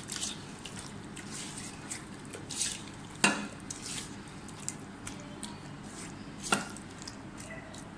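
Chicken being mixed through a thick yogurt and green-herb marinade in a bowl: soft wet stirring strokes, with two sharp knocks against the bowl, about three seconds in and again some three seconds later.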